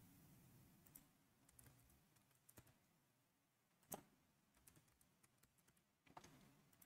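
Faint computer keyboard typing over near silence: scattered soft keystrokes, with one sharper click about four seconds in.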